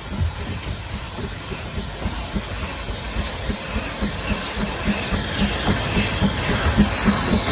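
Narrow-gauge steam tank locomotive 'Isaac' passing close at low speed: a regular beat of about four a second that grows louder as it nears, over a steady hiss of steam from its open cylinder drain cocks.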